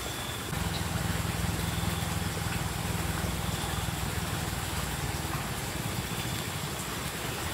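A small engine running steadily with a low hum, coming in about half a second in and easing off near the end.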